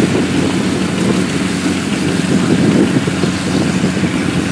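Farm machine's engine running steadily, a low even hum with a slight swell in the middle.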